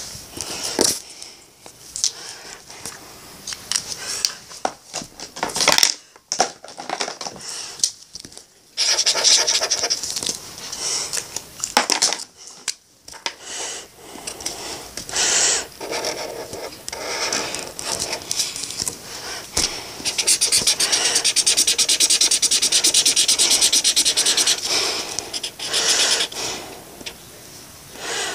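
Marker tip scratching and scribbling on paper in short, uneven strokes, with a longer run of fast, even back-and-forth scribbling about two-thirds of the way through.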